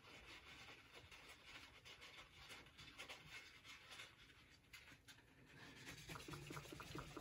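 Faint scratchy room tone. About six seconds in, a wad of paper towel starts rubbing back and forth on the face of a small steel bench anvil in quick repeated strokes, polishing off the rust with metal polish.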